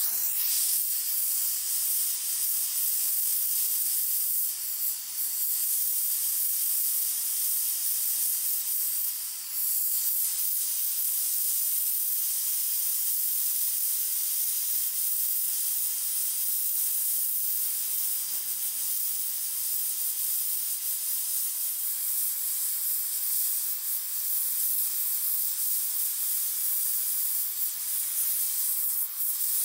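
Steady hiss of a small H01-2 oxy-propane brazing torch flame, playing on a steel joint as it is heated for brazing.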